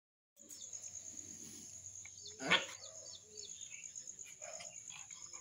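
Steady high-pitched insect chirring with faint bird chirps, and one short loud dog vocalisation about two and a half seconds in from two young dogs play-fighting.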